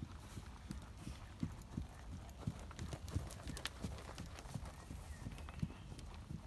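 Hoofbeats of a ridden horse moving quickly around a sand arena: dull, regular thuds, about three a second.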